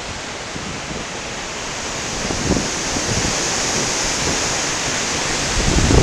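Hurricane wind rushing through trees as a steady hiss that grows louder from about two seconds in, with gusts buffeting the microphone in low rumbles near the end.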